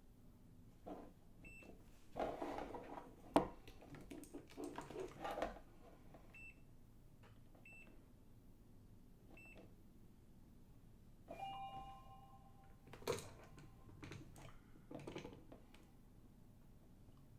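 Extech digital multimeter giving several short high beeps and one longer beep in two pitches, between clicks and rattles from its rotary dial and buttons being worked.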